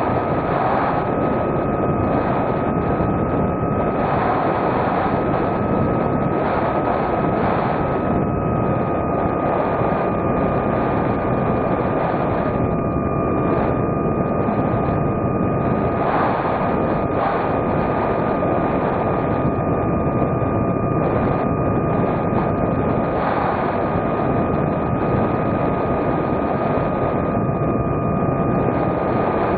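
Model airplane's electric motor and propeller whining at a steady pitch over a constant rush of wind noise.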